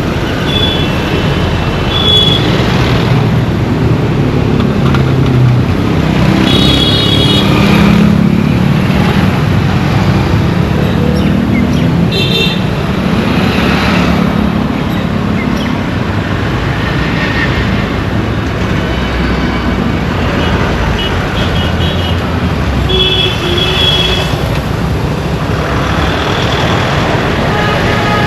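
Busy road traffic: a steady low rumble of engines and tyres, with vehicle horns tooting briefly several times.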